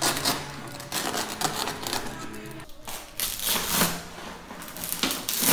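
Old fabric covering being torn off a Piper Cub's steel-tube fuselage frame by hand, crackling and ripping in several pulls. The covering failed a punch test and is too weak to keep.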